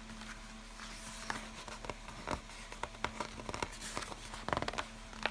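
Pages of a large glossy picture book being turned by hand: paper rustling and crinkling with scattered small clicks, and a quick run of clicks about four and a half seconds in.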